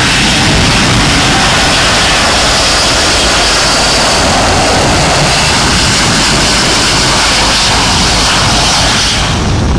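Jet airliner passing low overhead on landing approach: loud, steady jet-engine noise with a strong hiss. The high hiss falls away just before the end.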